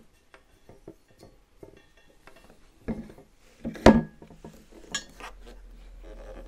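Hard plastic clicks and knocks as a Starlink dish's mast is worked into its base mount, with a few sharp knocks in the middle and the loudest about four seconds in.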